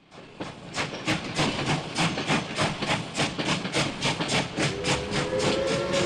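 Steam locomotive working hard, its exhaust making a quick, even beat of chuffs that grows louder, joined near the end by a steam whistle sounding a steady three-note chord.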